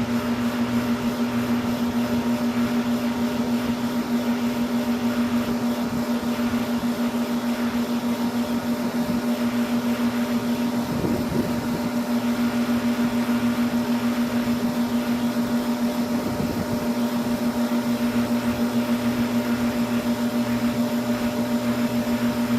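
Air-conditioning compressor running with a steady hum at one strong pitch, wavering briefly about halfway through and again about two-thirds of the way in.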